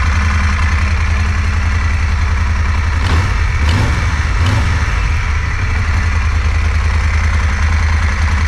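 Moto Guzzi Griso 1200 8V's air-cooled transverse V-twin idling while warming up, given a few quick throttle blips about three seconds in before settling back to idle.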